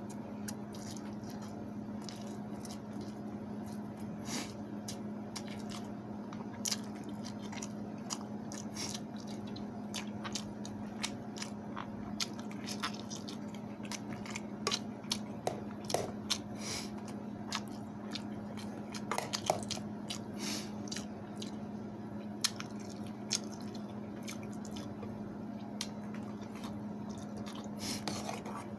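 A person eating close to the microphone, taking rice, fried egg and soft fried eggplant by hand. There is wet chewing and lip smacking, with many small sharp clicks scattered throughout, over a steady low hum.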